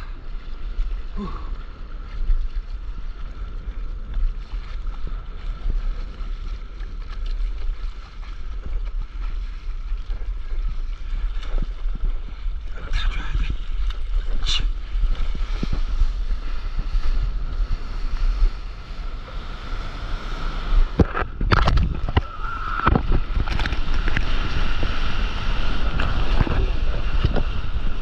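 Wind buffeting the action camera's microphone over the sloshing of sea water around a stand-up paddleboard, with a few sharp paddle splashes. In the last few seconds the hiss of breaking whitewater grows louder as the board rides the foam of a wave.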